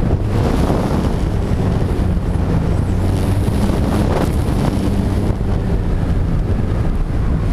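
Wind rushing over a camera mounted on a flying stunt kite: a steady, low rumble of wind buffeting the microphone.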